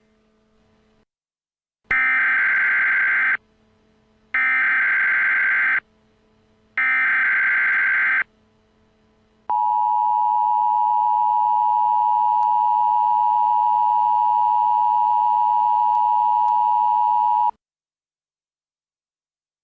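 Emergency Alert System tones: three screeching bursts of SAME header data, each about a second and a half long, then the steady two-tone EAS attention signal held for about eight seconds, cutting off abruptly. This sequence signals the start of an emergency alert broadcast.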